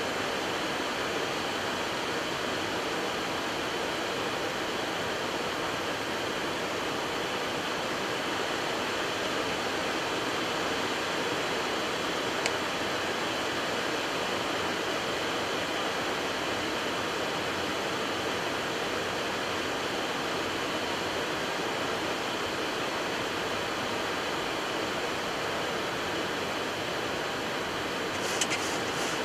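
Steady rushing noise of airflow and aircraft systems on the flight deck of a Boeing 737 MAX on final approach, with the landing gear down and flaps at 30. A single click about halfway through, and a few more clicks near the end.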